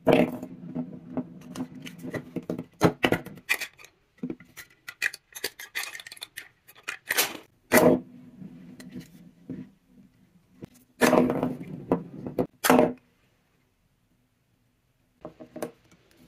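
Prima Sugarina plastic spinning-top doll toy spinning on a hard table, giving a low steady hum broken by many sharp clicks and knocks as it skitters and bumps. It clatters loudly around eleven to thirteen seconds in, goes quiet, and a few plastic handling clicks follow near the end.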